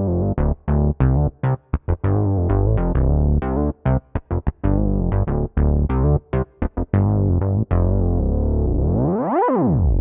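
Yamaha MODX M synthesizer playing a rhythmic sequence of short, chopped notes over a heavy bass. Near the end a single swooping sound rises and falls in pitch, then cuts off.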